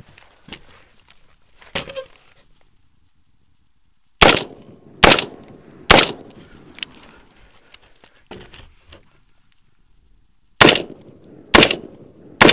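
Rifle shots from a mid-length AR-15 carbine in 5.56 NATO: three shots about a second apart, then, after a pause of roughly four and a half seconds, three more at the same pace. Before the first string there are a few small knocks.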